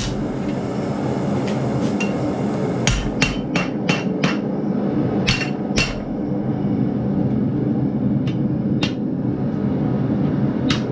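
Blacksmith's hammer striking a red-hot half-inch steel bar on the anvil, bending and rounding a curl. A quick run of about six blows comes about three seconds in, then two more, then a few spaced single blows, over a steady low hum.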